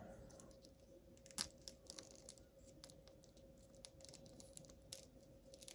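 Faint clicks and taps of a plastic action figure's parts being handled and worked at by hand, with a few sharper clicks about a second and a half in and near the five-second mark.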